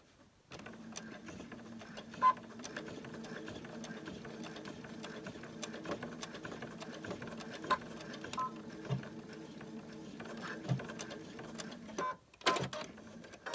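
Computerized sewing machine (Ellisimo II) stitching steadily through a ruffle and towel. It starts about half a second in and stops near the end, with a few short high beeps along the way, the loudest about two seconds in.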